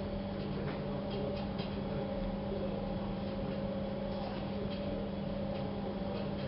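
Steady hum with a few faint, soft clicks here and there.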